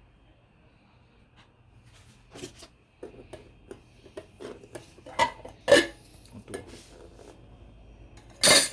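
Objects being handled: near-quiet room tone, then from about two seconds in an irregular run of light knocks, clicks and clatters, with the sharpest knocks near the middle and at the very end.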